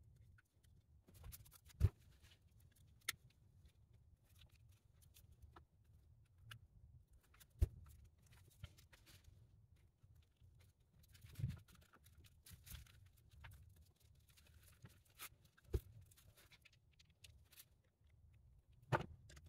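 Faint workbench handling noises: about six scattered clicks and knocks as a steering wheel and its plastic trim pieces are handled and fitted, over a low steady hum.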